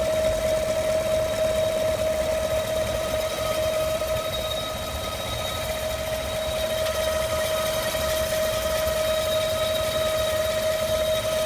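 2015 5.3L V8 idling with a loud, steady whine on top: the intermittent 'vacuum' sound whose cause the owner cannot find, with the cooling fans off.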